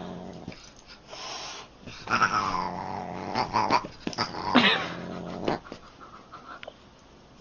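A Siamese cat and a pug sparring, with growling and yowling that come in irregular bursts. The sounds are loudest from about two to five seconds in and die down near the end.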